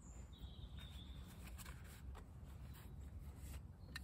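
Quiet woodland with a faint bird call, one thin high note held for about a second near the start, and a few small clicks and rustles from hands handling kindling and tinder.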